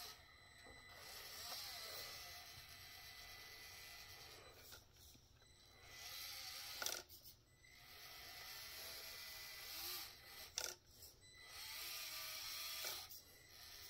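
Traxxas TRX-4M 1/18-scale RC crawler's small electric motor and gearbox whirring faintly in several stretches as it drives, stopping and starting, with two or three sharp knocks along the way.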